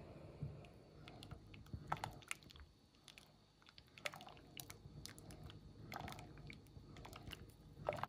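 Silicone spatula scraping and tapping against a pan while stirring heating milk: irregular sharp clicks over a faint low hum.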